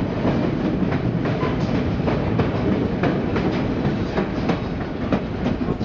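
White Pass railway train running along the track: a steady rumble of the cars with the wheels clicking irregularly over rail joints.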